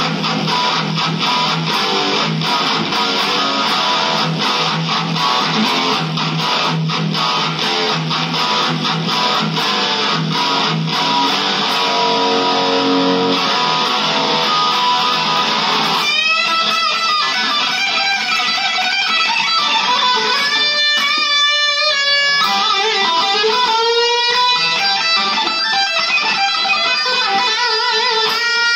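Custom one-piece rosewood Stratocaster-style electric guitar played through distortion. For the first half it plays fast picked chords. From about halfway it switches to held lead notes with string bends and vibrato.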